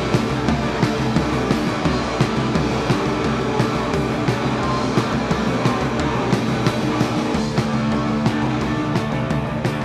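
A rock band playing live: electric guitar over bass and drums, with a steady driving beat.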